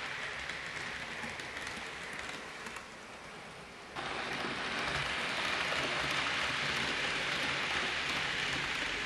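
Hornby OO gauge model trains running on the layout's track: a steady hissing rattle of small metal wheels on rail. It jumps louder about four seconds in, as two trains pass each other.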